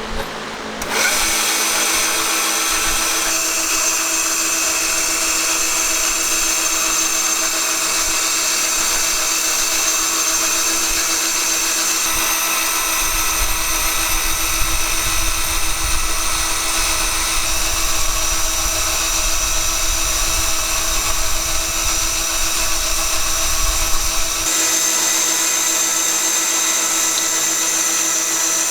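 Electric power tool's motor starting about a second in and running steadily with a constant whine. From about halfway through, a low rumble joins for roughly ten seconds and then drops away, as when the tool bears on the work.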